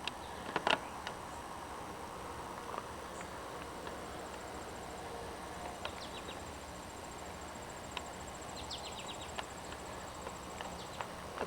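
Quiet outdoor background with a faint, high, pulsed insect trill, typical of crickets, through the middle and latter part, and a few scattered sharp clicks.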